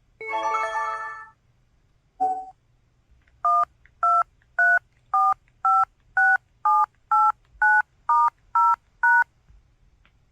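Motorola ZN50 ROKR keypad dial tones: twelve short two-pitch DTMF beeps, about two a second, running through the keys 1 to 9, star, 0 and pound in order. They are preceded by a short melodic phone chime and a brief blip.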